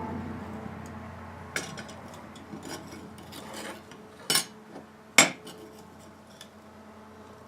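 Metal tools and a piece of copper clinking and knocking as they are handled, a handful of scattered taps with the two loudest about four and five seconds in. A low hum dies away over the first couple of seconds.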